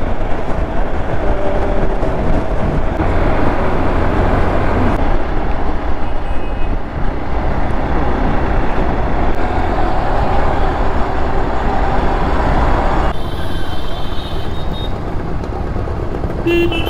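Wind rushing over the camera microphone with the Hero Xpulse 200 4V's single-cylinder engine running underneath, riding at speed among road traffic. The sound changes abruptly a few times where short riding clips are cut together.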